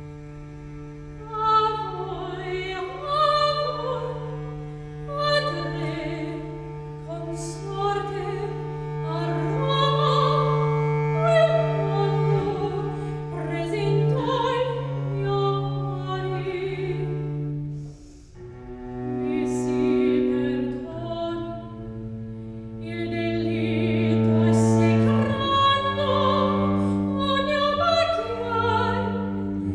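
Soprano singing a Baroque cantata, accompanied by a baroque cello holding long sustained bass notes and a harpsichord. The voice comes in about a second and a half in, after the cello note has begun, and briefly drops out midway.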